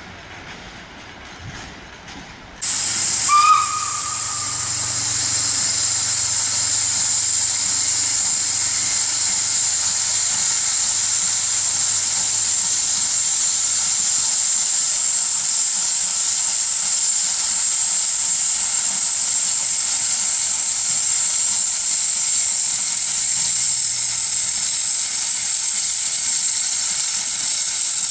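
0-6-0 tank steam locomotive hissing loudly and steadily as steam blows off, with a brief whistle note just after the hiss starts.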